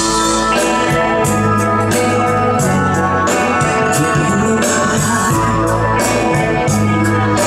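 Live band playing an instrumental passage of a pop ballad: guitar chords over a steady bass line and drums, with no one singing.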